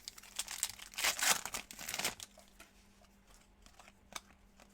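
Trading-card pack wrapper crinkling and tearing as it is opened, loudest about a second in, then a few faint ticks as it settles.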